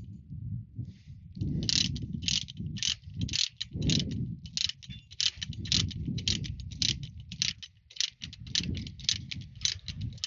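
Ratchet-type chain load binder being cranked to tighten a securement chain, its pawl clicking about three times a second in steady runs.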